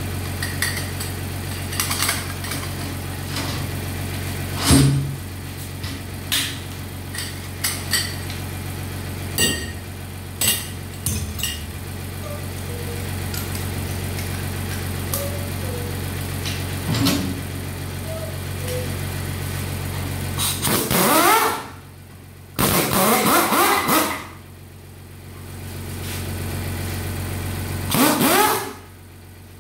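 Pneumatic impact wrench loosening bolts on a Honda CR-V automatic transmission case, running in three loud bursts near the end, each spinning up with a rising whine. Before that, sharp metal clinks and knocks of tools and parts, over a steady low hum.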